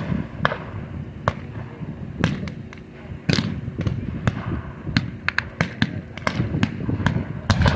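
Scattered small-arms gunfire firing blanks: irregular single shots from several guns, some near and sharp, others farther off, coming thicker near the end.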